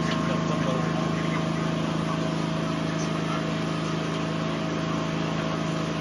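Steady engine-like mechanical drone holding one pitch throughout, over a constant rushing noise.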